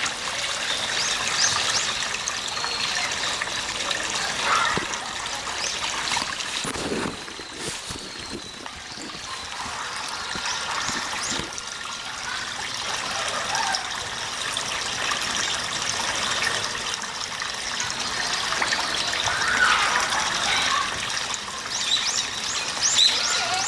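Water trickling and splashing steadily, as into a pool, with short high chirps scattered over it.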